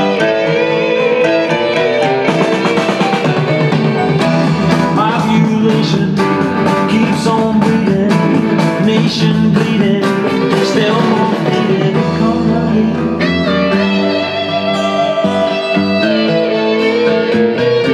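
Guitar-led music played back through a BRZHiFi class-D amplifier and its speakers.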